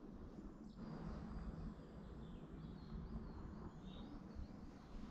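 Faint woodland birdsong: a few scattered short chirps over a steady low rumble.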